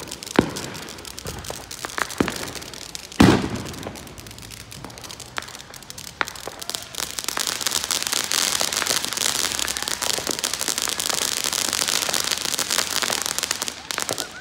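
Consumer fireworks: scattered sharp pops and one louder bang about three seconds in, then a ground fountain firework spraying sparks with a dense, steady crackling hiss from about halfway through until near the end.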